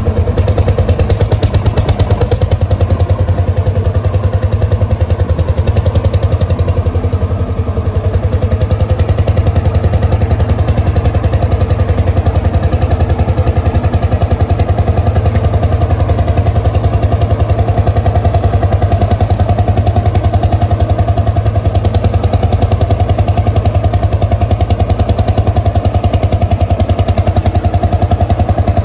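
Vintage tractor engine running steadily at a constant speed, with a rapid, even beat of firing pulses; its level dips briefly about six seconds in, then holds.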